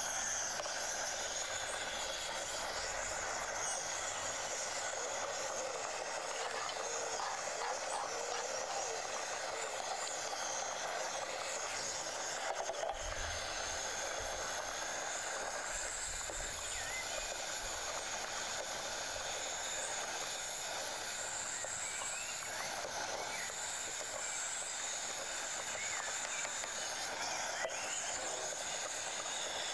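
Steady hiss of a pot of mushrooms and carrots cooking on a small gas burner mounted on a propane cylinder, the food sizzling in the pot.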